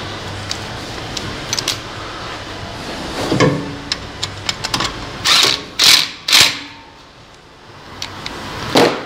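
Sharp metallic clicks and handling noise as a retaining screw is driven into a new front brake rotor on the wheel hub with a screwdriver. A few short, loud bursts of noise come about five to six and a half seconds in.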